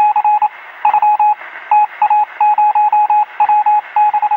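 Rapid electronic beeps at a single steady pitch, sounding in irregular clusters of short and longer pulses like telegraph code, over a steady radio-like hiss.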